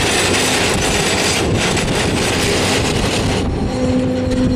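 Grain hopper cars of a freight train rolling slowly past close by, their wheels rumbling and clattering on the rails, with a short steady tone near the end.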